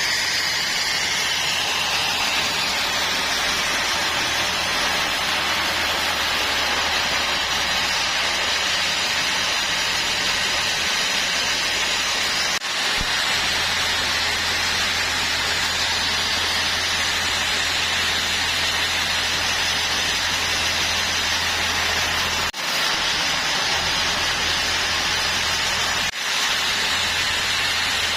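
Sawmill machinery running on mahogany logs: a steady motor hum under a continuous hissing saw noise, broken by brief dips about 12, 22 and 26 seconds in.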